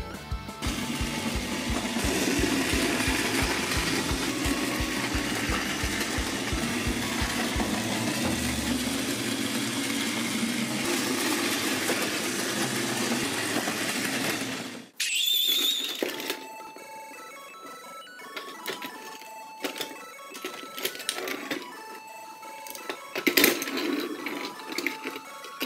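A battery-powered Plarail toy train's motor whirring steadily as it runs along wooden track, cutting off abruptly about fifteen seconds in. After that come scattered light plastic clicks and taps as the toy train cars are handled.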